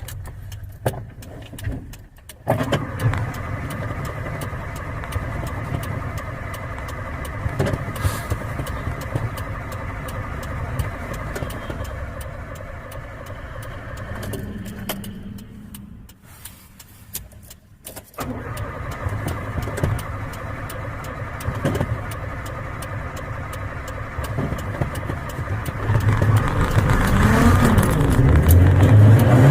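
A carbureted 1994 Honda Civic being cranked on the starter in a hard start: a long crank of over ten seconds, a pause of about two seconds, then cranking again. Near the end the engine catches and its pitch rises and falls as it is revved to keep it from stalling.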